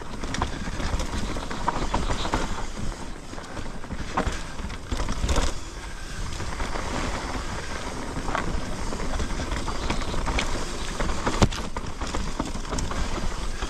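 Mountain bike rolling down a dirt trail: tyres rumbling over the ground, with irregular knocks and rattles from the bike over bumps, and wind on the action camera's microphone.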